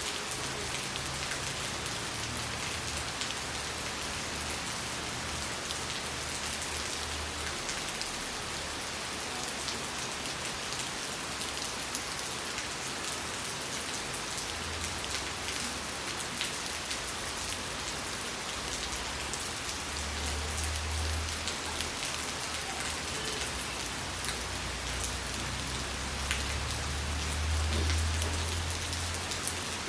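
Steady rain falling on puddles and waterlogged ground, with single drops ticking close by. A low rumble comes and goes in the second half, strongest near the end.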